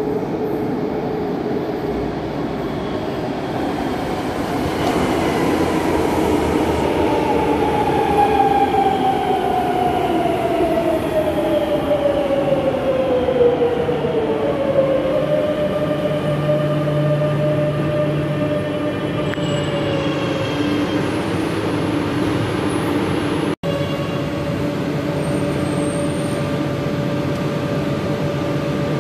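Metro train pulling into an underground station and braking to a stop: over its rumble a whine falls steadily in pitch for several seconds as it slows, then the standing train gives a steady hum. The sound cuts out for an instant near the end.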